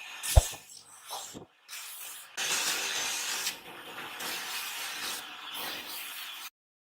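Workshop sound from cricket-bat making: a sharp knock, then a few seconds of steady hissing, rubbing noise like a bat being sanded or worked by hand, which cuts off abruptly near the end.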